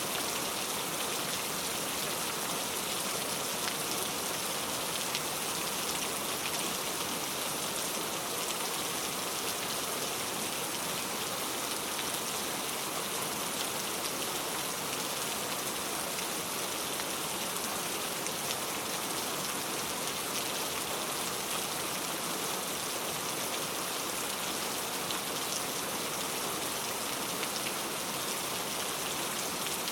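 Heavy rain falling steadily, a dense even hiss of countless drops hitting surfaces.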